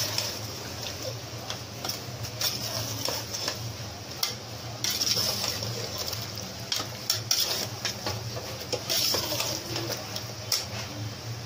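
A slotted metal spoon stirring meat, onions and spices in a metal pot, with irregular scraping and clinks against the pot's sides and bottom, over the sizzle of the meat frying in oil.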